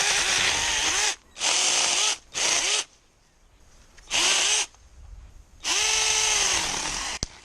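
Drill Pro cordless electric mini chainsaw cutting a green branch in five short bursts of the trigger, its motor whine rising and falling as the chain bites into the wood. The last and longest burst stops abruptly near the end.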